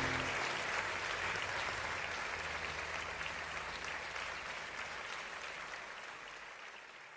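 Large audience applauding, the clapping fading steadily away.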